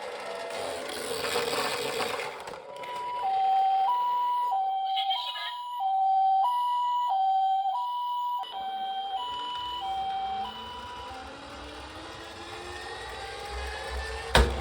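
Toy ambulance minicar's electronic two-tone siren, a high note and a low note alternating about every half second in the Japanese ambulance "pee-po" pattern, fading out about ten seconds in. A sharp knock near the end.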